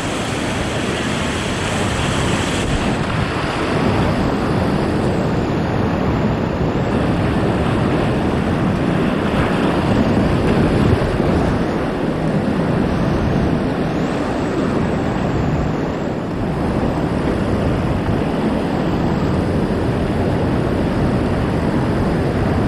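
Whitewater rapid rushing, a loud steady wash of churning water that holds level throughout.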